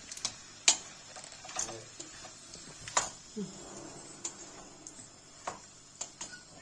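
Wooden spoon stirring chopped vegetables in a stainless steel pot, clacking irregularly against the pot's side, the loudest knock about a second in.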